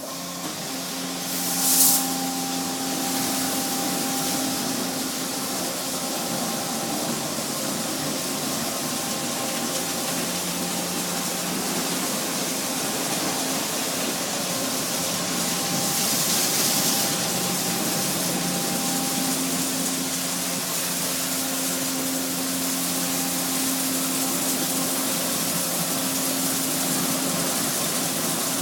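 Car wash water spraying in a steady hiss over a low motor hum, with a short louder blast of spray about two seconds in and another around the middle.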